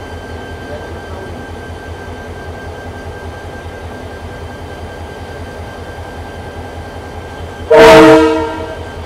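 Steady low rumble of a diesel-hauled sleeper train standing at the platform. About three-quarters of the way in comes a short, loud blast of the diesel locomotive's horn, sounding several notes at once and dying away over about a second. It is the train's departure signal.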